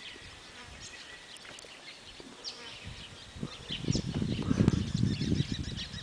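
A fly buzzing close to the microphone, loud and uneven from about three and a half seconds in, over scattered faint bird chirps.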